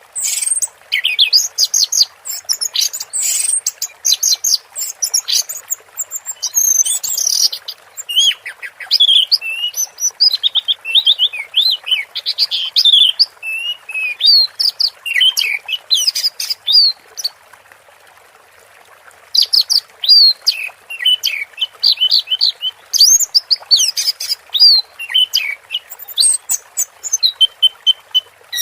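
Orange-headed thrush (anis merah) singing in a long run of rapid, varied whistles and chattering phrases: the intense, trance-like 'teler' song that keepers prize. The song breaks for about two seconds a little past the middle, then resumes.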